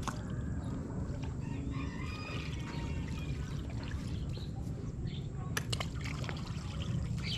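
Floodwater lapping and trickling over a steady low rumble, with a few sharp clicks about five and a half seconds in.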